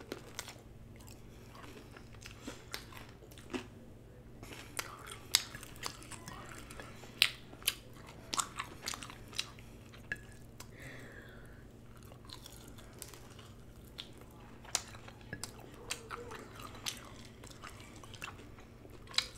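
Close-miked chewing and biting on sauced chicken wings dipped in ranch dressing: wet mouth sounds with many short sharp clicks scattered throughout, the loudest about five and seven seconds in. A faint steady hum runs underneath.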